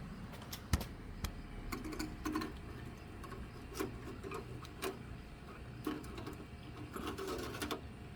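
Scattered light clicks and taps with brief rubbing and rattling sounds over a low steady hum, the longest rattle near the end.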